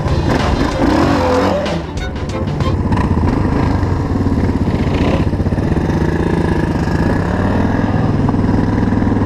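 Single-cylinder four-stroke engine of a Suzuki DR dual-sport motorcycle idling steadily close by.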